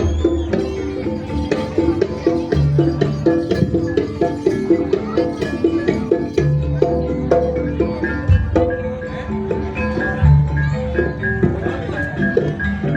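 Javanese gamelan music for a jaranan dance: metallophones play a repeating melody of struck notes over steady drum strokes.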